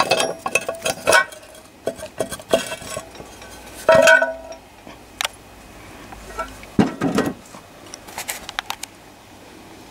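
Metal clinks and knocks as the valve cover of a CS Lister stationary diesel engine is worked loose and lifted off: a string of separate sharp clicks, the loudest about four seconds in.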